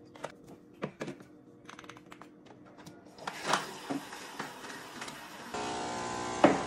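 Light clicks and taps of cups and a coffee capsule being handled on a wooden counter, ending in a sharp knock as a drinking glass is set down near the end. From about two-thirds in, a steady hum of several even tones runs underneath.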